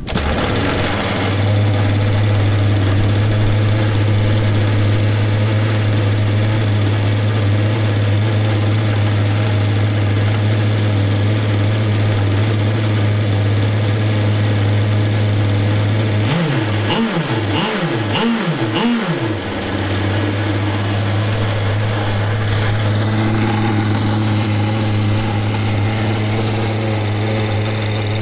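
29cc Zenoah two-stroke petrol engine in an RC model power boat, catching at the start of its first run and idling steadily. A little past halfway it is revved up and back down four times in quick succession, then settles back to idle.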